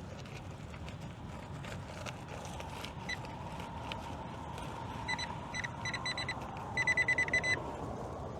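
Metal detector beeping over a buried target. A few short, high-pitched single beeps come first, then a fast run of beeps near the end.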